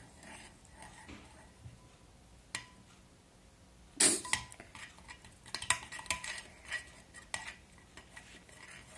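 A utensil clinking and knocking against a bowl while stirring thick slime made of glue and activator, with a sharp knock about four seconds in followed by a run of quick clinks.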